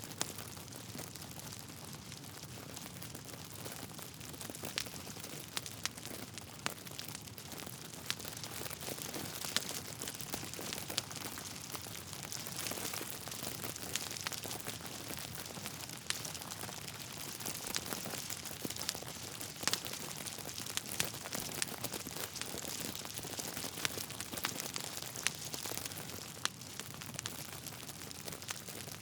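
Wood fire burning in a fireplace: a steady hiss with frequent sharp crackles and pops from the logs scattered throughout.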